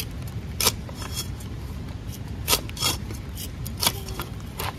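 Steel cleaver chopping moringa (drumstick) pods on a wooden log chopping block: several sharp, irregularly spaced chops as the blade cuts through and strikes the wood.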